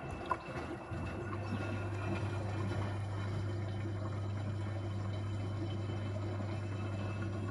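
Gorenje WA65205 front-loading washing machine running a wash: water rushing and sloshing in the drum, with a click just after the start and a steady low hum setting in about a second in.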